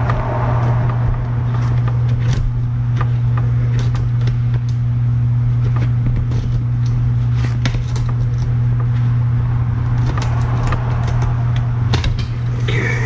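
Steady low hum of a running motor or engine, with scattered light clicks and taps throughout.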